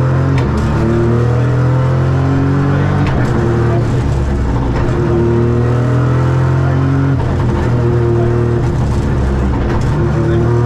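Ford Fiesta Rally3's turbocharged three-cylinder engine driven hard, its revs climbing and dropping again and again, with a few short knocks now and then.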